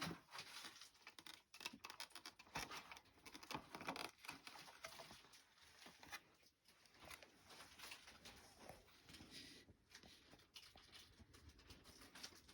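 Faint, irregular rustling, scratching and small clicks of hands handling a CPU and its packaging.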